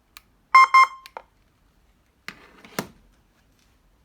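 Two short, quick electronic beeps from the siren system's control unit, followed by a click, then two sharper clicks with a brief rustle, like switches being pressed and the unit handled.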